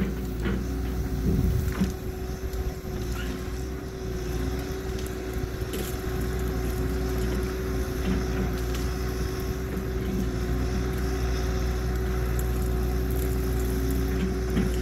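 Cat 314 hydraulic excavator's diesel engine running steadily under load as it works its bucket through brush, with a steady hum and a few sharp cracks of breaking wood in the first couple of seconds.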